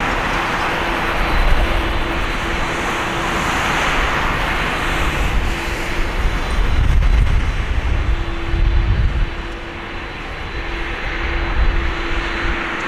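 Jet engines of an Airbus A330-200 airliner running, heard as a loud, steady rushing roar with a low rumble underneath.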